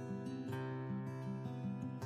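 Soft background music with a steady, repeating pattern of notes.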